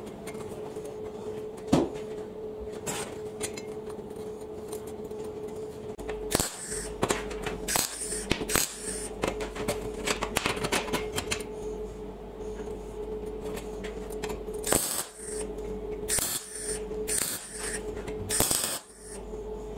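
Steel brake discs and bike parts clinking, knocking and scraping against a steel welding table as they are positioned, over a steady hum. Several short, louder noisy bursts come in the second half.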